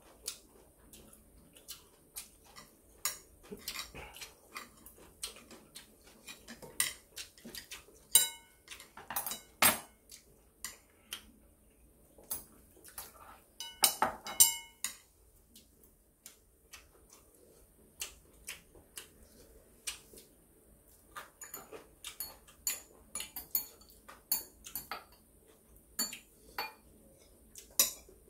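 Metal chopsticks and spoons clicking, tapping and scraping against ceramic bowls and plates during a meal, in scattered irregular clinks, with a few louder ringing clinks about eight to ten seconds in and again around fourteen seconds.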